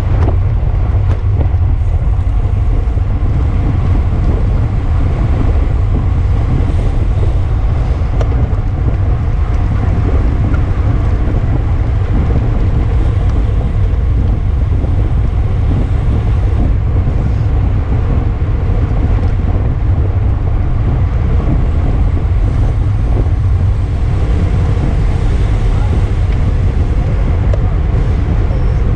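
Heavy, steady wind buffeting on the microphone of a camera carried by a bicycle racer riding at speed: a constant low rumble with no let-up.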